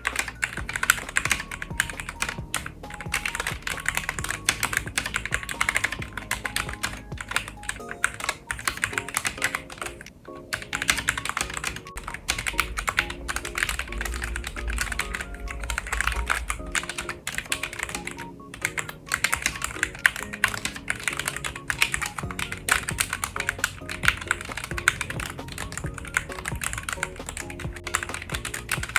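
Fast typing on a LeadsaiL FA98 low-profile mechanical keyboard with red switches: a dense run of key clacks, pausing briefly about a third of the way in and again near two-thirds.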